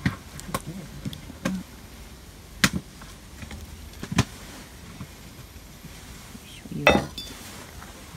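A ladle stirring stew in a cast-iron Dutch oven, knocking against the pot a handful of times. About seven seconds in, the heavy cast-iron lid is set onto the pot with a clank, the loudest sound.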